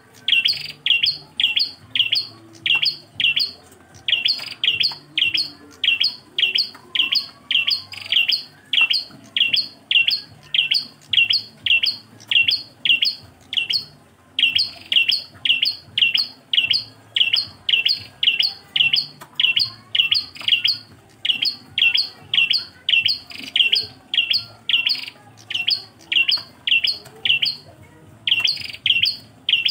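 A single prenjak klawu repeating a short, sharp chirp over and over, about two to three notes a second, with a few brief breaks.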